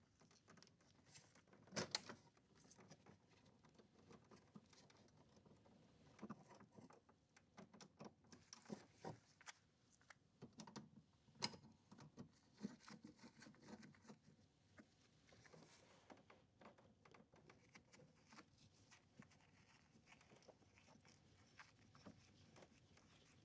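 Near silence, with scattered faint clicks and taps: a couple about two seconds in and a loose cluster through the middle.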